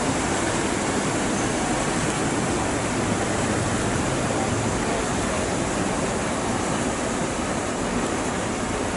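Paddle steamer La Suisse's paddle wheels churning the lake water as she passes close by: a steady rushing wash.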